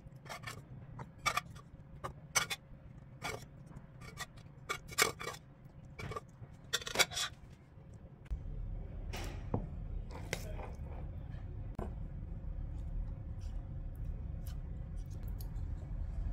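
A utensil and food clicking and scraping against a cooking pot as chicken pieces are set in it: a run of sharp, irregular clicks and knocks. After about eight seconds a low steady hum comes in, with only a few clicks after that.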